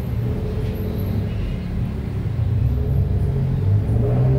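A low, steady rumble of background noise.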